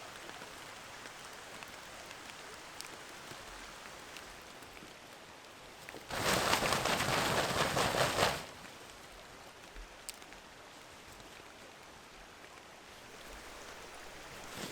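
Steady light rain pattering with scattered drips. About six seconds in comes a sudden rush of much louder, denser patter that lasts about two seconds and cuts off sharply.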